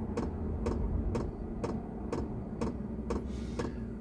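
Diesel air heater running: its fuel dosing pump ticks steadily about twice a second over the low hum of its fan.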